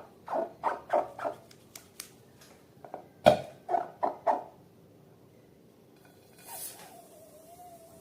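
Rubber balloon squeaking in quick rhythmic squeaks as it is squeezed. A sharp, loud pop comes about three seconds in, then a few more squeaks, and a faint sliding squeal with a hiss near the end.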